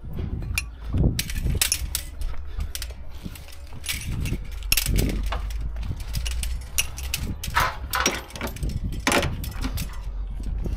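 Steel ratchet-strap hooks and buckles clinking and clanking against one another as lashing straps are released and gathered by hand, with the webbing rustling and scraping.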